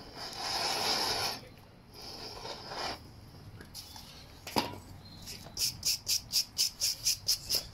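Gas torch hissing in two short spells as it is played over a horse's hoof sole to dry it, then a single knock, then a wire brush scrubbing the hoof in quick, even strokes, about five a second.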